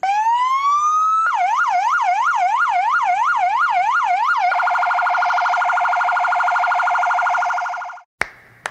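Electronic emergency-vehicle siren: a rising wail for about a second, then a yelp sweeping up and down about three times a second, then a very fast pulsing tone that fades out. A single sharp click follows just before the end.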